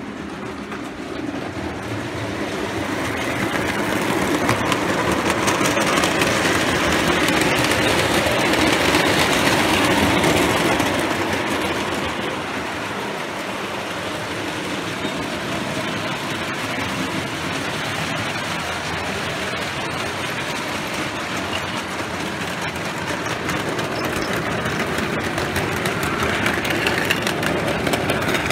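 O gauge model trains running round a layout, the wheels rumbling and clattering over the track. The sound swells as a train passes close, loudest about eight to ten seconds in, eases a little after, then grows again near the end.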